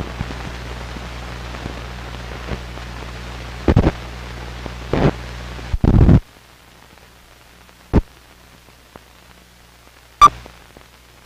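Old film soundtrack running through its leader: steady hiss and low hum with several loud pops and thumps. About six seconds in the hum cuts off, leaving a faint hiss broken by a pop and, near the end, a sharp click with a short beep.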